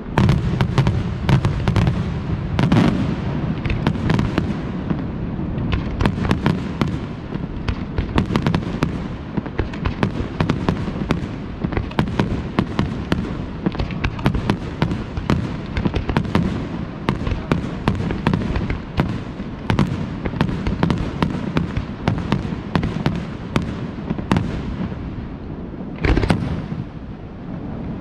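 Aerial fireworks shells bursting in a dense, continuous barrage of rapid bangs, opening with a sudden loud burst.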